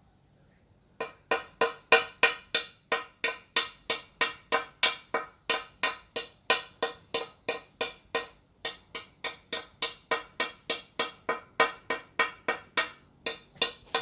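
End-cutting pincers nibbling the edge of a glazed ceramic tile: crisp snaps, about three a second, each with a brief ring from the tile, pausing briefly twice.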